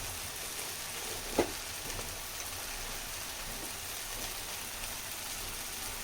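Tomato chutney mixture frying in oil in a pan, a steady sizzle, with a short knock of a utensil against the pan about a second and a half in.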